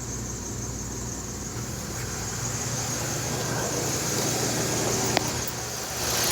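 Chevrolet Aveo engine running with a steady low hum and an unidentified noise from the engine bay that slowly grows louder. A single click comes about five seconds in, and a hiss rises sharply near the end.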